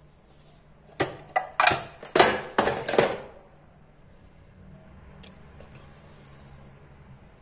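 A spoon knocking and clicking against a glass mixing bowl, about six sharp strikes in quick succession over two seconds, as spice is added to the bowl.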